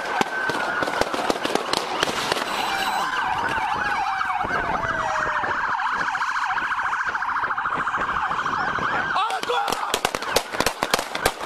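Several police car sirens sound together, overlapping wails and a fast yelp. Near the end a rapid, irregular run of sharp impacts starts and is louder than the sirens.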